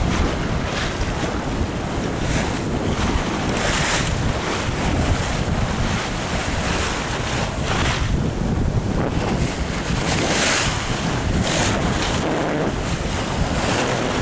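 Wind buffeting the microphone over the rush of water along a Cal sailboat's hull under sail. Several hissing splashes of spray come as the bow cuts through the waves, the loudest about ten seconds in.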